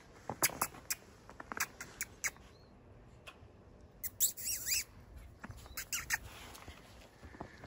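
Footsteps crunching in deep powder snow: a string of short, crisp crunches, some with a high squeak, thickest about four seconds in.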